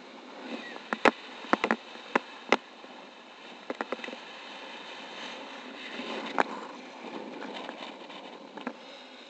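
Wind rushing over the microphone of a paraglider pilot's action camera in flight, a steady rush broken by irregular sharp clicks and knocks, several close together about one to two and a half seconds in, a burst around four seconds and single ones later.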